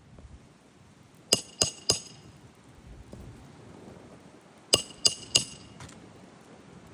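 Hammer striking metal on a shingle roof: two quick sets of three sharp, ringing blows, the second set about three seconds after the first, then one light tap.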